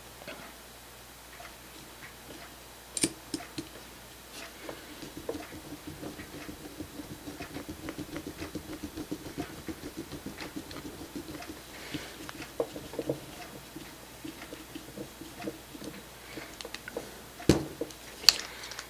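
A small screwdriver turning a short screw into the top of a scale RC axle's steering knuckle: a fast run of tiny ticks and scrapes as the screw is driven in. A few sharp clicks come about three seconds in, and two louder knocks come near the end as the driver and parts touch the work.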